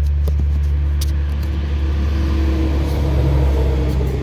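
A tractor-trailer passing on the road, its engine and tyre rumble building to a peak about three seconds in and then starting to fade.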